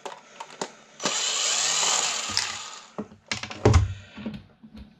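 Cordless power screwdriver running for about two seconds while backing screws out of a desk fan's housing. It is followed by several sharp clicks and knocks of screws and parts being handled.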